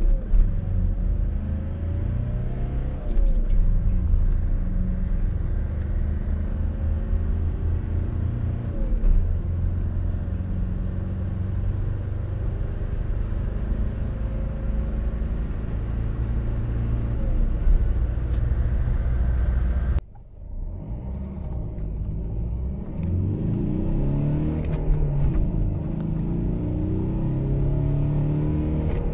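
Mitsubishi L200 turbo-diesel pickup engine heard from inside the cab, accelerating hard through the gears, its pitch climbing and then dropping at each shift. After a sudden cut about twenty seconds in, a second L200 with the 2.5 DI-D diesel pulls away and revs up again.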